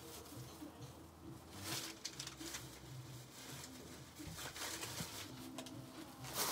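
Faint rustling and light knocks of things being handled and moved about, a plastic bag among them.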